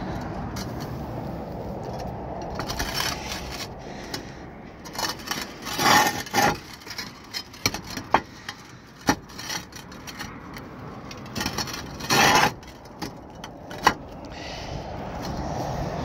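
Concrete roof tiles scraping and clacking against each other as they are shifted and seated back into place. There are several sharp clicks and a few longer scrapes, the loudest about six and twelve seconds in, over a steady low background noise.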